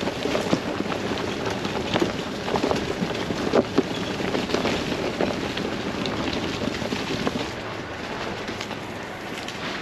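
Pickup truck tyres rolling slowly over a dry, leaf-covered dirt trail, crunching leaves and twigs in a dense run of crackles and snaps, with wind noise on an outside microphone. The crackling thins out in the last couple of seconds.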